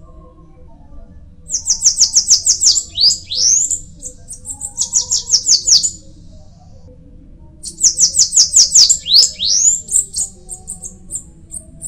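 Bananaquit singing: three bursts of rapid, very high, thin notes, each ending in quick upward sweeps.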